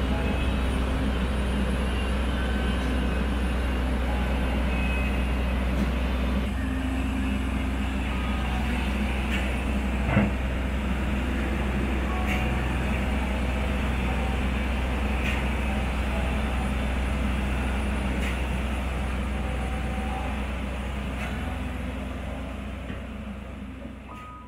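Heavy excavator at work: the diesel engine runs steadily under load with a deep rumble, and there is one sharp knock about ten seconds in. The noise fades out at the end.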